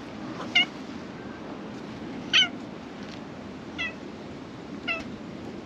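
Black cat meowing four times, each meow short, the second one the loudest.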